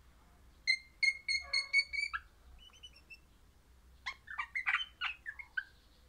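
Crimson rosella calling: a run of about six evenly spaced, clear whistled notes, then after a pause a quicker burst of varied chattering notes.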